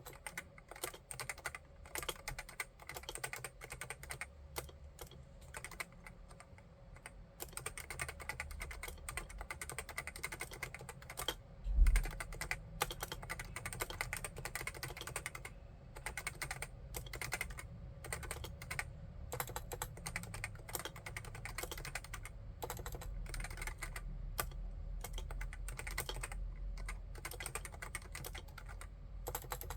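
Steady typing on a Realforce AEAX01 RGB keyboard with Topre electrocapacitive switches, the keystrokes coming thick and irregular. One much heavier low thump comes about twelve seconds in.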